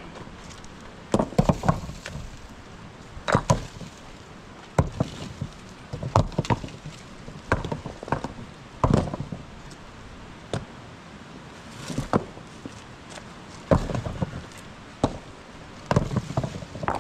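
Loose rocks clacking and knocking against each other as they are handled, in irregular clusters of sharp hits every second or two.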